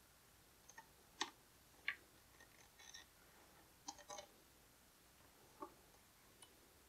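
Irregular small clicks and taps of hard plastic toy parts, a green wheel being pressed and worked onto the body of a G.I. Joe Ninja Lightning Cycle toy, which will not seat properly. The two sharpest clicks come a little after one second and near two seconds, with a few quicker ones around four seconds.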